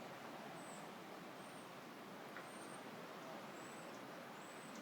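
Short, high, thin calls of small flocking birds, repeating about once a second over a faint steady hiss.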